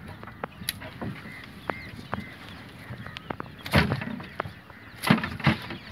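A gill net and fish being handled in a canoe: a run of small clicks and knocks, with louder thumps and rustling of net about four and five seconds in.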